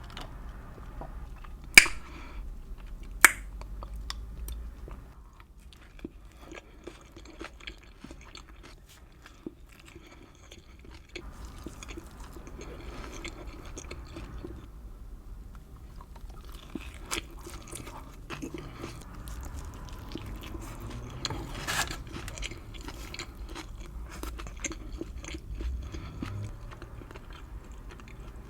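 Close-miked chewing and biting of homemade street tacos, wet mouth sounds with small irregular crunches. Two sharp, loud bites about two and three seconds in.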